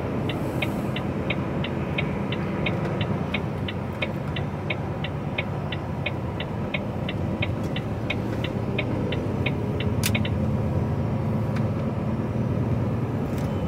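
Lorry cab warning beeper pipping about three times a second, set off by the car ahead, stopping about ten seconds in after a few quick pips. Under it, the steady rumble of the truck's engine and tyres on the road.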